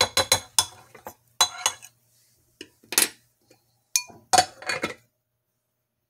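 Clattering and clinking from a Dash mini rice cooker's pot and glass lid as rice is emptied in and the lid is set on, in several quick groups with a short ring about four seconds in; it stops about five seconds in.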